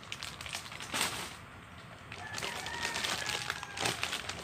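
Plastic snack packets crinkling and rustling as they are handled and put down, with a faint bird calling in the background in the second half.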